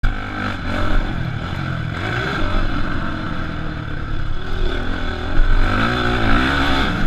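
Motocross dirt bike engine running hard under a rider, its pitch rising and falling repeatedly as the throttle is opened and closed over the track.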